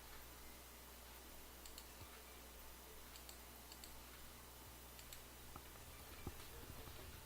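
Faint computer mouse clicks, a few scattered and some in quick pairs, over a low steady hum, near silence.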